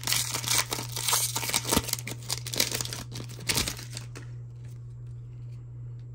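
Foil Panini Select football card pack being torn open and crinkled in the hands, crackling for about four seconds before it stops. After that, the pulled cards are handled quietly with a few faint ticks.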